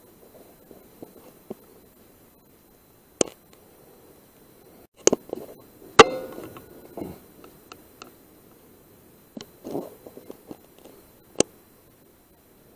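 A .177 air rifle firing at rats: a few sharp cracks, the loudest about six seconds in with a short ringing after it. Faint rustling and scratching come between the shots.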